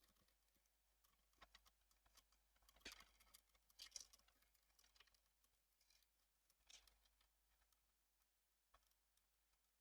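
Near silence, with a few faint clicks and taps scattered through it, about a second apart in places.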